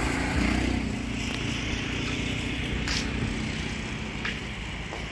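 A vehicle engine running steadily at low speed, a low hum that eases off gradually, with a few faint ticks.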